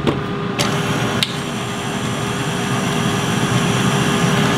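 KitchenAid stand mixer running with its whisk attachment, beating thick cheesecake batter in the steel bowl: a steady motor whir with a constant hum. A spatula knocks against the bowl twice in the first second and a half.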